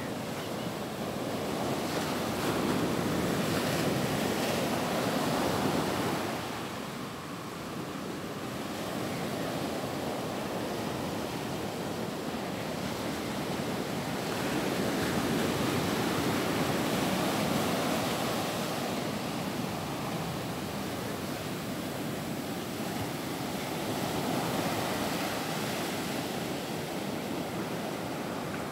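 Surf breaking and washing up the shore: a steady rush of water that swells louder every several seconds as each wave breaks.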